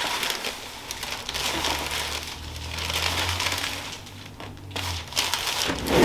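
Rustling and crinkling of the treatment table's headrest cover and clothing as hands shift and position a patient's head, with faint scattered clicks and a low steady hum in the middle.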